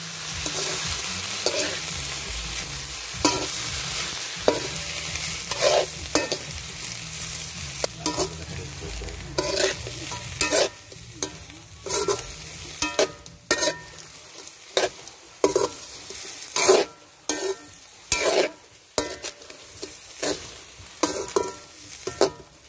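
Whole shrimp sizzling in a pan while a spatula stirs and scrapes through them, knocking against the pan about once a second. The sizzle fades about halfway through while the stirring strokes go on.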